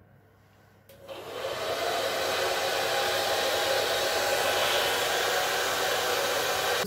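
Handheld hair dryer switched on with a click about a second in, its motor whine rising briefly as it spins up, then blowing steadily and loudly.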